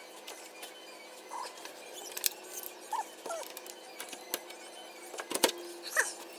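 Metal doorknob hardware clicking and knocking as the parts are pushed through the door and fitted together, with a cluster of louder knocks near the end. Several short high squeaks are scattered between them.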